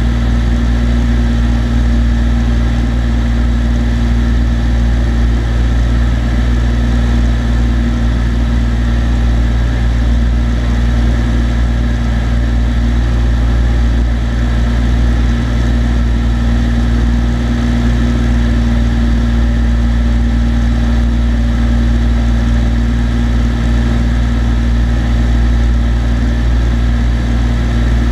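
Cessna TU-206D's turbocharged piston engine and propeller droning steadily in flight, heard inside the cabin, with a constant pitch and no change in power.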